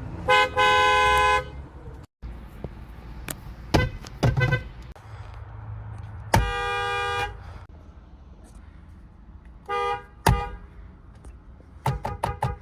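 Toyota Camry car horns sounding in a string of honks: a short beep then a longer honk, a couple of quick beeps, one long honk about six seconds in, a short honk near ten seconds, and a run of rapid taps near the end. A few sharp knocks fall between the honks.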